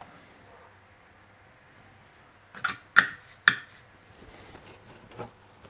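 Hard objects clattering on a workbench: three sharp knocks close together a little under three seconds in, and a fainter one near the end.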